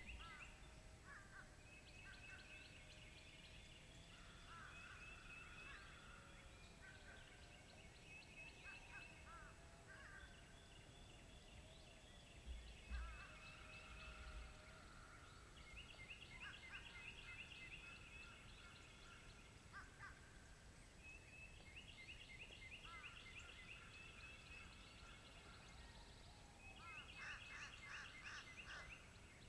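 Wild turkey gobbling, with songbirds singing and trilling over the top. The loudest, densest rattle of gobbling comes near the end.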